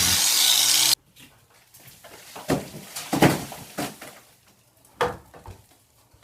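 A power saw cutting into plaster cuts off abruptly about a second in, followed by a series of irregular knocks and cracks as sagging, water-damaged plaster is broken loose from the ceiling lath.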